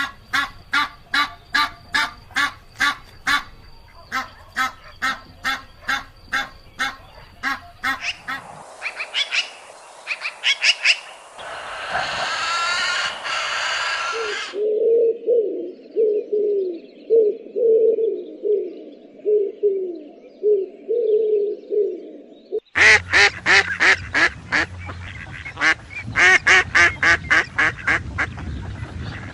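A run of spliced bird-call clips, mostly ducks quacking: repeated quacks about three a second, then other calls over a hiss, a stretch of lower, muffled calls, and loud rapid quacking again from about twenty-three seconds in.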